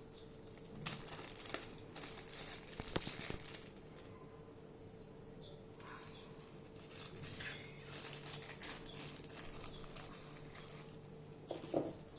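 Faint rustling and light clicks of packaging being handled and opened, in bursts. Short, high, falling bird chirps sound now and then over a faint steady hum.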